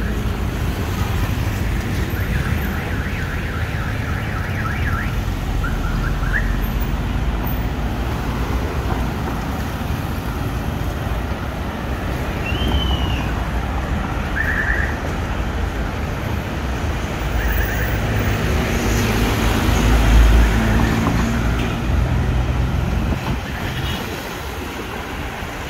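City street traffic: a steady rumble of passing cars and buses that swells louder about twenty seconds in, with a few brief high chirps over it.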